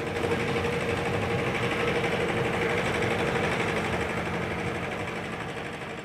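Small river motorboat's engine running with a fast, even beat, fading away toward the end.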